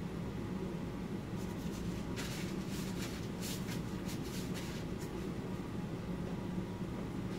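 Steady low room hum, with a run of short scratchy rustles between about one and a half and five seconds in.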